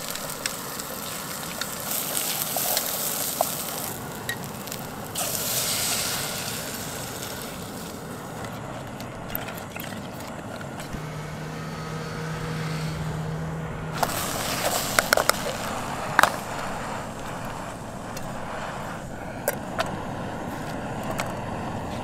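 Pre-cooked potatoes and scrambled eggs sizzling in a pan on a Primus camp stove, the hiss swelling for a second or two at a time as the food is stirred, with a few sharp clicks of a utensil on the pan. A low steady hum runs for about three seconds a little past the middle.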